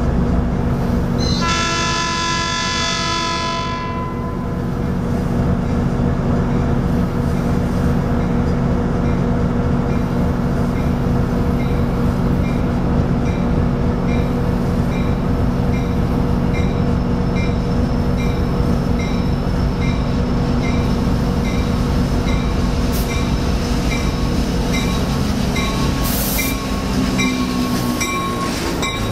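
Metrolink F59PHI diesel locomotive arriving: one horn blast of about two and a half seconds near the start, then the diesel engine running steadily under a bell ringing about one and a half strokes a second. A short hiss comes near the end as the locomotive draws alongside.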